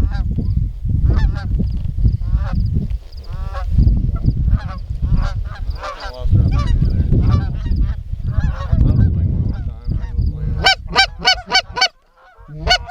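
Geese honking over and over, with a quick run of about half a dozen loud honks near the end, over a low rumble.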